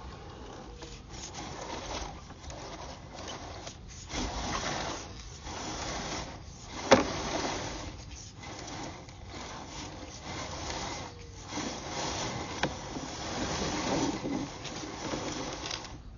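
Scraping and rubbing inside a sewer pipe, coming and going in uneven swells, with a sharp knock about seven seconds in, as a sewer inspection camera is pushed along the pipe.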